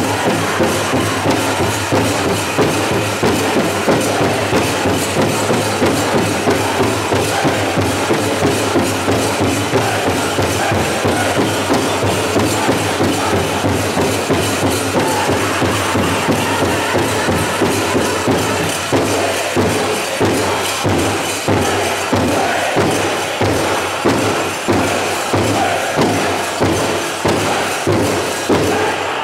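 Powwow drum group playing a men's chicken dance song: a big drum struck in a steady beat of about two strokes a second, under the singers.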